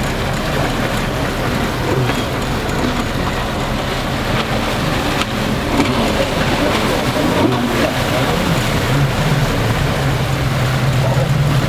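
Boat engine running steadily, a low hum that grows stronger near the end, under a steady wash of noise.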